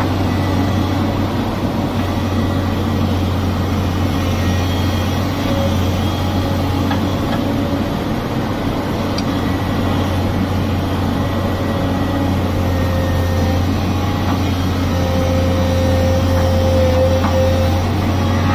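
Excavator's diesel engine running steadily as a constant low hum, with faint higher whining tones that come and go over it.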